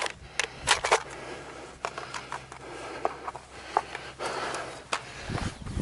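A sharp crack right at the start, then a string of light clicks and knocks at irregular intervals from the rifle and gear being handled against a plywood barrier. Near the end a heavier rustling starts as the shooter begins to move.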